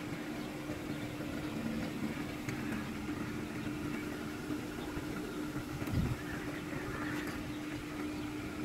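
Steady outdoor background noise with a constant low hum, and a soft thump about six seconds in.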